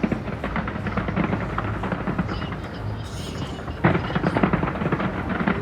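Fireworks going off in quick succession, a dense crackle of bursts, with a sudden louder volley about four seconds in.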